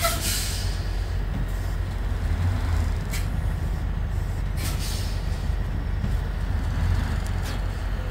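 Semi-truck diesel engine running low and steady as the tractor-trailer manoeuvres slowly, with about four short hisses of air from the air brakes.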